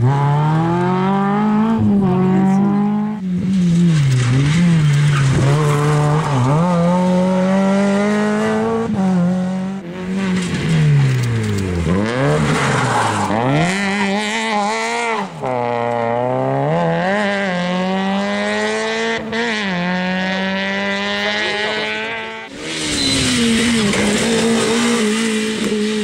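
Rally cars driven hard on a gravel stage, one after another: engines revving high and dropping away repeatedly through gear changes and lifts off the throttle.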